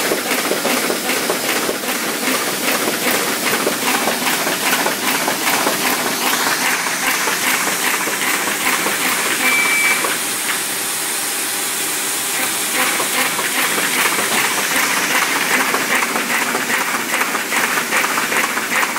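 Horizon AFV-544AKT paper folding machine running, feeding and folding sheets with a rapid, even clatter of several strokes a second. The clatter eases for a couple of seconds past the middle, just after a short high beep.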